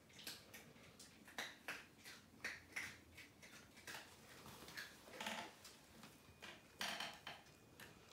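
Faint, irregular soft clicks and crinkles as a cat licks a small dog's head, the two animals rubbing against the paper of a large paper bag, with a couple of longer rustles near the middle and toward the end.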